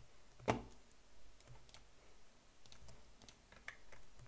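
Faint clicks at a computer: one sharper click about half a second in, then a few scattered lighter clicks.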